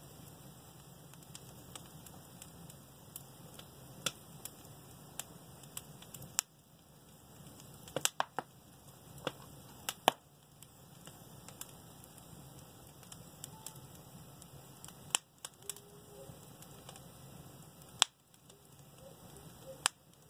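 Fireplace fire crackling, with a low steady rush and irregular sharp pops, a handful of them much louder than the rest.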